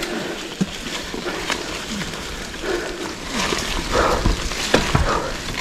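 A mountain biker breathing hard and grunting while riding up a trail climb, over ongoing trail noise from the ride.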